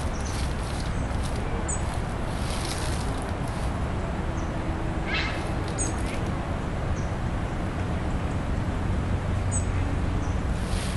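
Outdoor ambience: a steady low background rumble, with a small bird giving short, high double chirps three times, a few seconds apart.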